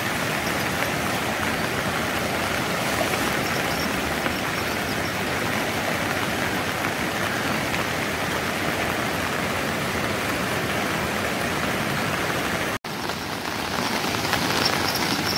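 Steady rush of a swollen, muddy river in flood, mixed with falling rain. It cuts out for an instant near the end, then carries on.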